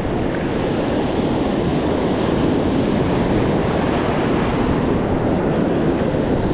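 Shore surf washing and breaking in a steady rush, with wind buffeting the microphone.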